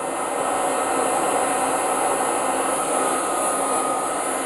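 Handheld hair dryer blowing steadily with an even rushing hiss and a faint hum, drying a sledgehammer head that has just been wiped with wax and grease remover.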